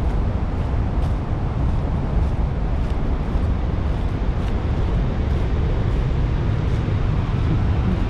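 Steady low rumble of wind buffeting the microphone of a camera carried along a stone forest path, with faint light ticks about twice a second, in step with walking.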